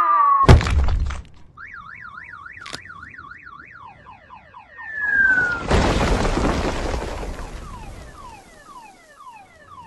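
Cartoon sound effects: a falling whistle ends in a heavy crash as a boulder lands, then a car alarm sounds, first a fast warble and then repeated falling chirps. About five seconds in, a second falling whistle leads into a long crash of a rockslide that fades over a couple of seconds, while the alarm's falling chirps go on.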